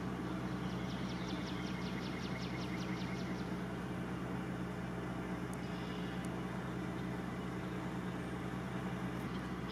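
Steady low drone of an engine-driven flood-water pump running at a constant speed. A rapid run of about seven high ticks a second sounds over it from about half a second in until about three seconds later.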